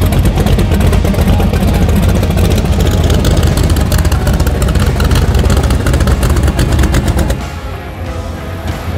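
A loud vehicle engine running, heard as a rapid train of sharp exhaust pulses over a low rumble. It dies down about seven seconds in.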